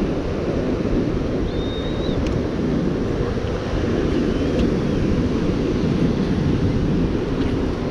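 Steady wind buffeting the microphone over the rush of sea surf. A faint high chirp comes about one and a half seconds in and again around four and a half seconds.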